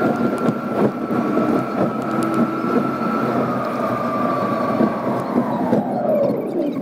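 Sped-up road and engine noise inside a moving car, with a steady high whine that drops sharply in pitch near the end as the car slows.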